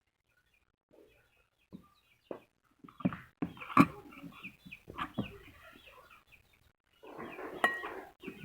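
A spoon knocking and scraping in a mixing bowl as margarine is added to sugar, with several sharp knocks. Many short high calls from birds sound in the background.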